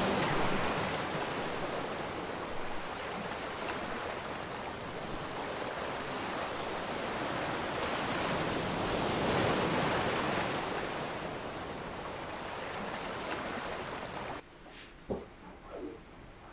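Steady rush of sea surf and wind, swelling a little midway. About fourteen seconds in it cuts off sharply to a quiet room with a few soft knocks.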